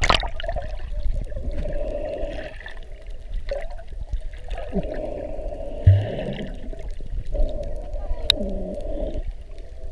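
Muffled sound of water heard through a camera held underwater: a low rumble with sloshing and gurgling. There are sharp splashes at the very start and a low thump about six seconds in.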